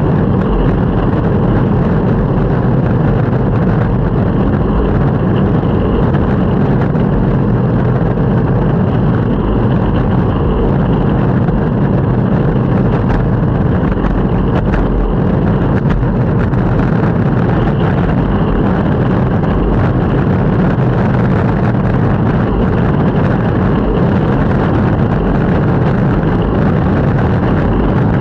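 Longboard wheels rolling over pavement: a steady, loud rumble.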